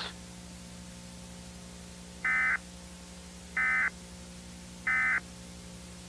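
Emergency Alert System end-of-message signal: three short, identical bursts of warbling SAME data tones about a second and a half apart, marking the end of the alert. A steady low hum runs underneath.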